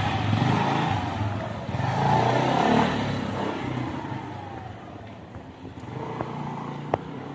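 Motorcycle engine accelerating away and fading into the distance over several seconds, with a single click near the end.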